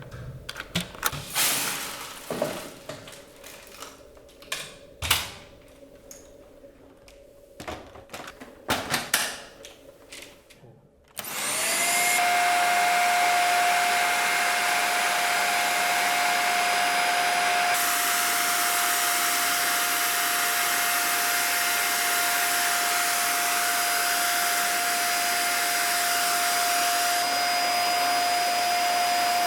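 A series of scattered clicks and knocks, then, about a third of the way in, a Dyson Small Ball upright vacuum cleaner is switched on: its motor spins up with a quick rising whine and runs steadily with a high, even whine over rushing air.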